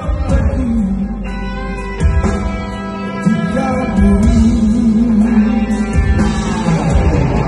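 Live band music with a male singer's voice, holding a long wavering note with vibrato about halfway through, over electric guitar, bass and drums.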